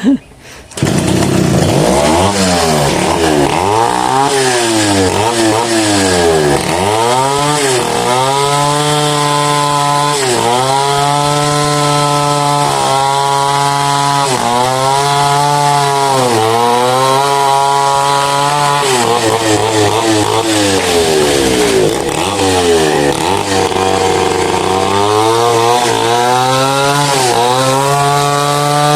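Chainsaw cutting into a mahogany trunk at high revs. It comes in loud about a second in, and its pitch keeps dipping under load and climbing back, roughly every two seconds.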